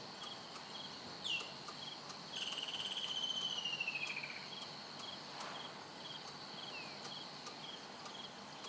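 Bush insects shrilling steadily, with a short chirp repeating about twice a second. Over them a bird gives brief falling whistles and, about two seconds in, a louder falling warbled call lasting around two seconds.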